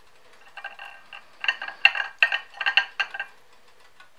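Crunching into a crisp panko-breaded fried chicken cutlet: a quick run of crackly crunches over about three seconds, loudest in the middle.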